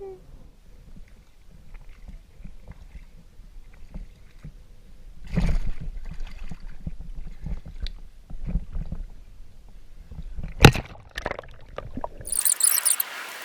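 Water sloshing and splashing as a person swims and wades through a shallow creek, with one louder splash about five seconds in and a sharp knock about ten seconds in. In the last second a steady hiss takes over.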